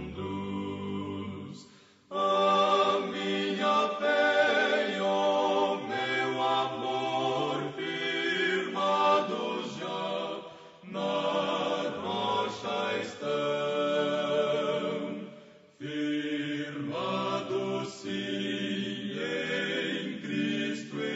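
A choir singing a hymn in long held phrases, breaking off briefly about two, eleven and sixteen seconds in.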